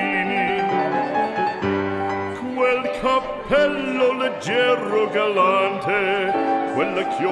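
Background music in an operatic style, the melody carried in long, wavering held notes over instrumental accompaniment.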